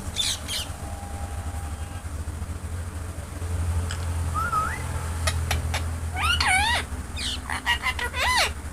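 Ringneck parrot calling: two short squawks, a rising whistle about four seconds in, then a run of quick, wavering calls in the last few seconds, over a low steady hum.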